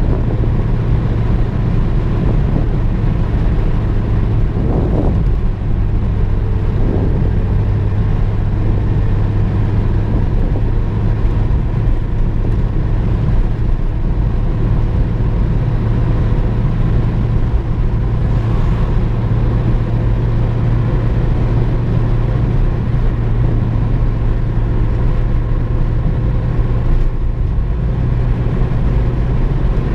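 Inside the cabin of a VW Golf II driving steadily at cruising speed: a constant low engine drone over tyre and road noise.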